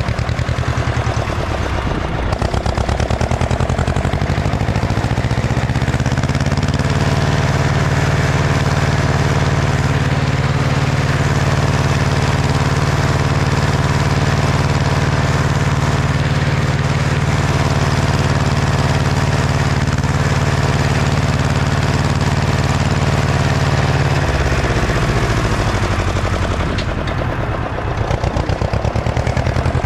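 Ursus C-335 tractor's two-cylinder diesel engine pulling a disc harrow. The revs climb over the first few seconds, hold steady, then drop back about three-quarters of the way through.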